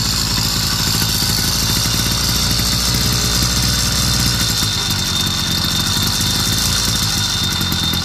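Brand-new YD100 two-stroke motorized-bicycle engine running steadily just above idle on its first cold start, held there by hand on the throttle because, not yet warmed up, it won't idle on its own.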